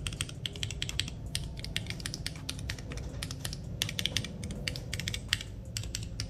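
Rapid, irregular typing on an FL680 mechanical keyboard with Tecsee Purple Panda tactile switches and NJ80 keycaps, its PCB and plate assembly test-fitted into a case with foam-lined bottom. The keystrokes sound quite deep and solid ('đầm').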